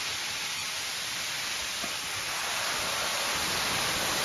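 Waterfall rushing: a steady, even hiss of falling water that grows gradually louder over the second half as it is approached.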